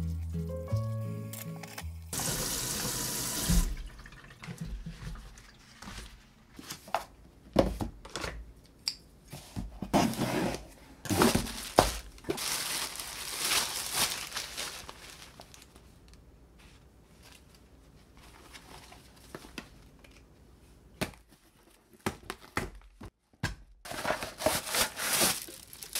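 A kitchen tap runs briefly over the sink during dishwashing. Then a cardboard box is opened and its packaging handled, with scattered rustles, scrapes and knocks, a quiet stretch, and more rustling near the end.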